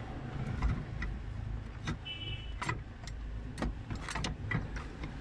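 Scattered light clicks and knocks as a car's accelerator pedal assembly is handled and worked loose from its mounting, over a steady low rumble, with a brief high tone about two seconds in.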